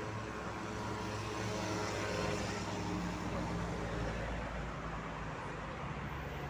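Road traffic: a vehicle's engine and tyres rising as it passes, loudest about two seconds in, then fading to a steady rumble.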